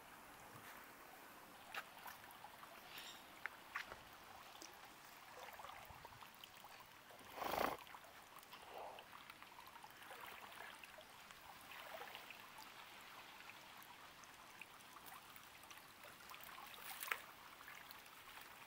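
Faint trickling and splashing of water in shallow fish ponds as a worker wades through with hand nets. There are scattered small clicks and one brief louder noise about seven and a half seconds in.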